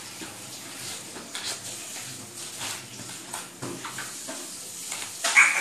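Toddlers playing: fabric rustling and scattered short vocal sounds, with a louder high-pitched squeal near the end.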